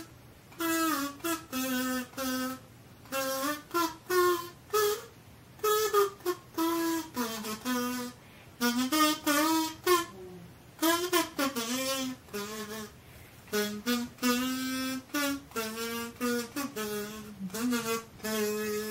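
Plastic kazoo played with a buzzing, hummed tune of short and held notes, in phrases with brief pauses between them.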